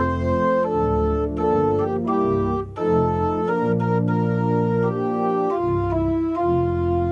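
Organ played in full, sustained chords that move from one to the next, with a short break about three seconds in.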